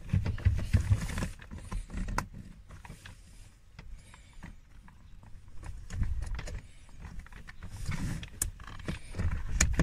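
Hands working at plastic trim and a stuck blower final stage resistor under a Range Rover L322's dashboard: irregular clicks, knocks and rubbing, busiest in the first second and again in the last few seconds.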